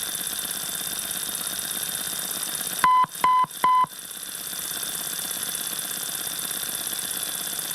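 Radio interference noise: a steady hiss with a thin high whistle and a fast, even flutter. About three seconds in, three short, loud beeps at one pitch cut in within about a second, then the hiss returns.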